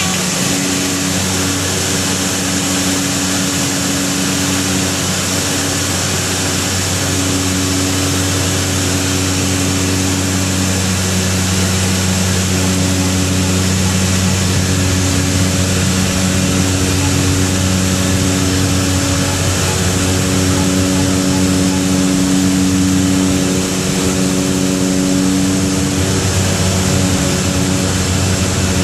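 Cabin noise of a Beechcraft 99's twin turboprop engines and propellers in flight, heard from inside the cabin. A loud, steady drone with a constant hum and tones that swell and fade every few seconds.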